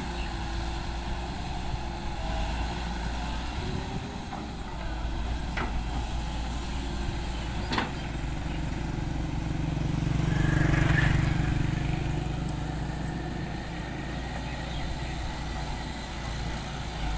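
Volvo EW145B wheeled excavator's diesel engine running steadily under hydraulic work as the machine dumps soil and swings to dig, the engine loading up and getting louder about ten seconds in, with two sharp knocks a few seconds before that.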